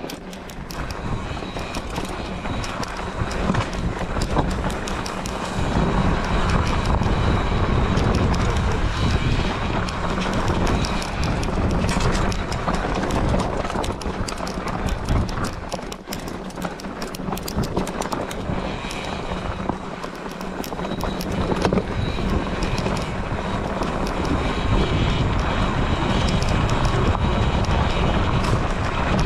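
Continuous rumbling, rattling noise on a GoPro's microphone as it is carried along a rough trail, with many small clicks and knocks and a strong low rumble; it swells about five seconds in.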